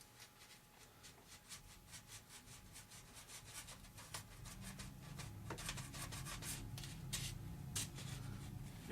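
X-Acto knife blade cutting and scraping foam, a quick series of short scraping strokes that grow louder in the second half.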